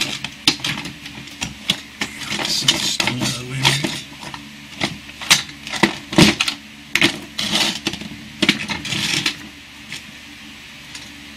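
Knocks, clicks and scrapes of rocks, a plastic CD case and a steel blade blank being shifted about on a wooden workbench, dying away near the end.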